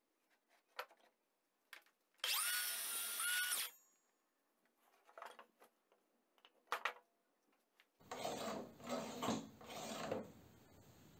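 Cordless circular saw (Greenworks 24 V) running in one short burst of about a second and a half, its motor whine dipping briefly as the blade cuts into a wooden block. Short clicks and knocks of the saw and wood being handled come before and after it, with a stretch of rubbing and knocking near the end.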